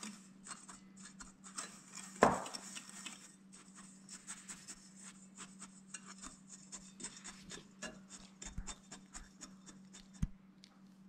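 Metal wire whisk stirring dry cake ingredients (flour, cocoa powder, sugar) in a glass bowl: a continuous scratchy rubbing with many small ticks of the wires against the glass. There is one louder knock about two seconds in.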